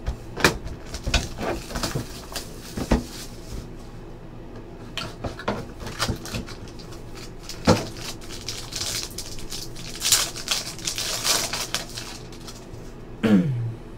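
Trading-card box and foil pack being handled on a table: scattered taps and clicks as the cardboard box is opened and the pack lifted out, then the crinkling rustle of the foil pack wrapper being torn open about ten seconds in. A short falling voice sound near the end.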